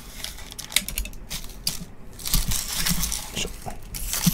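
Foil-wrapped baseball card packs being handled and set down on a table mat: scattered crinkles and light taps, thickening into a steadier rustle in the second half.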